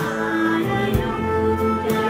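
A group of young voices singing a slow song together over violin and bass guitar, with a low drum-like thump about a second in.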